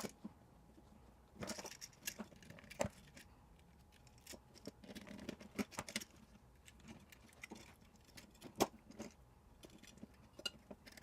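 Faint, scattered clicks, taps and light metallic rattles of small hardware being handled while wiring an electrical outlet, with a few brief scrapes.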